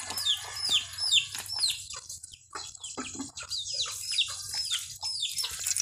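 Chickens with chicks peeping: a run of short, high, falling peeps, two or three a second, that stop shortly before the end.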